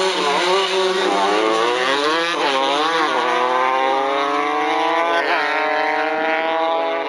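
Two drag-racing motorcycles launching from the start line and accelerating hard down the strip. The engine pitch climbs and drops back sharply at each upshift, several times.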